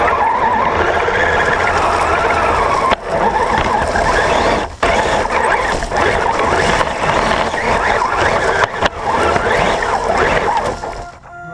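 Radio-controlled truck driving hard over rough dirt: a steady whine from its drivetrain and a rush of tyre noise, cutting out briefly about three, five and nine seconds in as the throttle is let off, and dropping away near the end.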